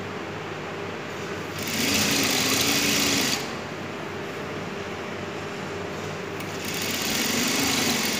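Industrial lockstitch sewing machine stitching a single-fold hem in cotton fabric. It runs in two bursts of about two seconds each, one about two seconds in and one near the end, with a lower steady hum between them.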